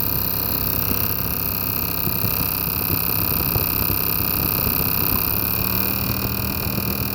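Saab 9-2X Aero's turbocharged flat-four engine running with the air conditioning on, giving a steady, layered mechanical whine and hum. It is a noise that began after the AC idler pulley was replaced and comes on with the AC; the owner does not know its cause. A low tone shifts slightly about five seconds in.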